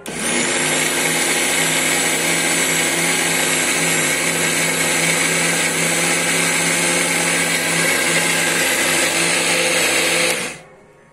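Electric mixer grinder running with its steel dry jar, grinding roasted grains into powder. The motor starts suddenly, runs at a steady high whine for about ten seconds, then stops.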